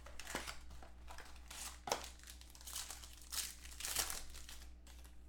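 Trading cards and their plastic or foil packaging being handled, with irregular crinkling and rustling. A steady low electrical hum runs underneath.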